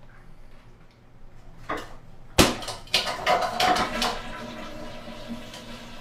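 A sharp knock, then about a second of clattering knocks with a little ringing, fading away.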